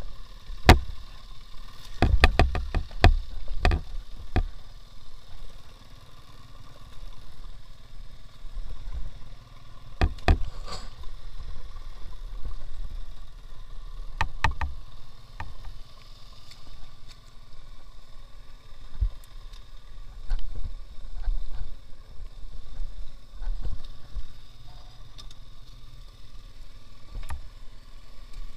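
Small engine of a two-wheel-drive motorcycle ATV running steadily while it works through a water-filled ditch. Clusters of sharp clattering knocks come over it a couple of seconds in, again about ten seconds in and around fifteen seconds in, with single knocks later on.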